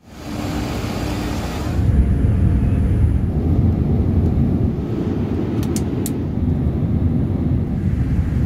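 Steady low rumble of a moving vehicle, fading in at the start, with a hiss over it for the first two seconds and a couple of faint clicks about six seconds in.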